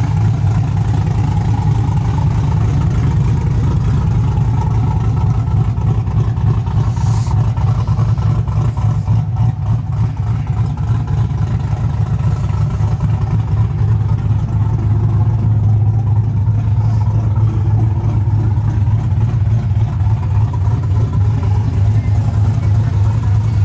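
Turbocharged GMC Sierra pickup cruising at highway speed: a steady low engine and exhaust drone with road noise.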